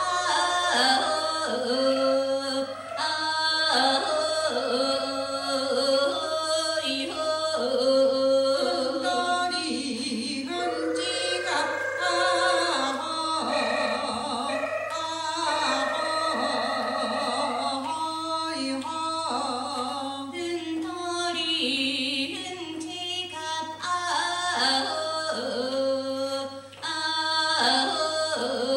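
Voices singing a traditional Ainu dance song in short, repeating phrases.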